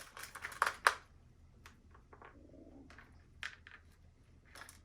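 Fishing tackle being handled: a quick run of sharp clicks and clinks of plastic boxes and metal lures in the first second, then a few scattered lighter clicks.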